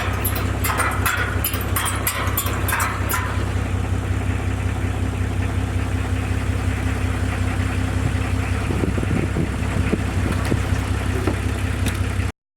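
A vehicle engine running steadily with a low, even hum. A rapid clicking rattle sounds over it for the first three seconds or so, and the sound cuts off suddenly just before the end.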